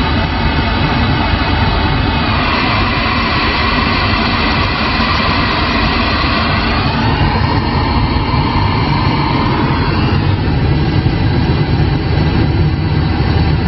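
Loud steady static hiss from a CRT SS6900N CB radio receiving on AM with no one transmitting. The noise shifts in tone about two, seven and ten seconds in as the scan steps through channels.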